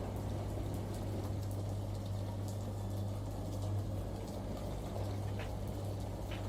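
Washing machine running: a steady low hum with water churning inside.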